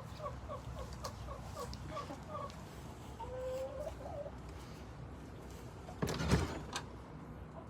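Hens clucking in a quick run of short notes, about three a second, then one longer drawn-out call. About six seconds in, a brief loud rustling thump.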